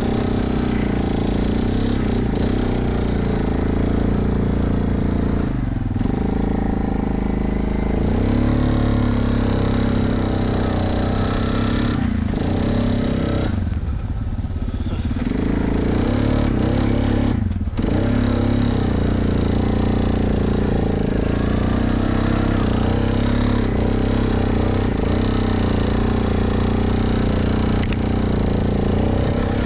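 ATV engine running as the quad is ridden, its pitch rising and falling with the throttle. It eases off and picks up again a few times, most clearly about halfway through.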